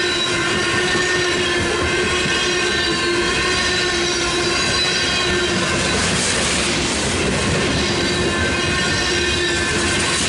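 Covered hopper cars of a BNSF grain train rolling through a grade crossing with a steady rumble of wheels on rail, over the continuous ringing of the crossing's electronic warning bells. A hissy swell of wheel noise rises about six seconds in and fades a second or so later.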